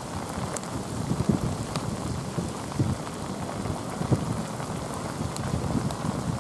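Heavy rain of a sudden downpour, a steady hiss with scattered drops striking close by as sharp ticks and irregular low thumps.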